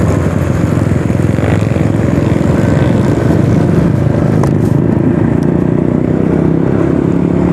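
2018 Honda PCX scooter's engine running steadily.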